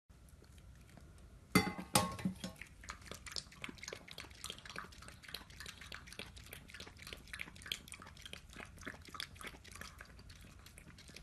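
Poodle feeding from a stainless-steel bowl: a quick run of small clicks and clinks against the metal, with two louder clanks of the bowl about a second and a half to two seconds in.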